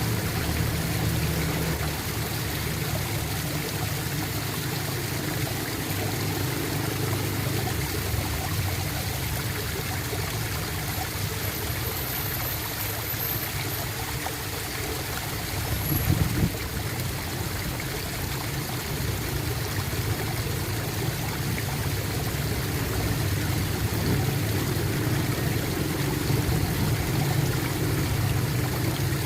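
Water flowing and gurgling steadily, like a small stream, with a brief louder surge about halfway through.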